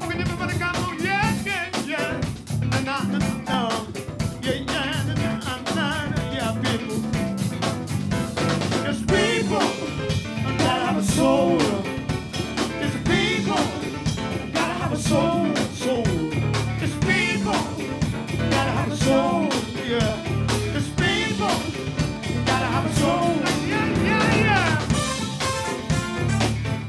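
Live R&B band playing an upbeat groove on drum kit, bass, electric guitar and keyboards, with singing over it and a steady, fast beat.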